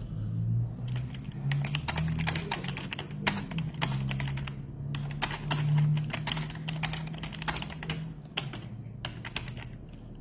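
Typing on a computer keyboard: quick runs of key clicks that thin out over the last couple of seconds, over a low hum.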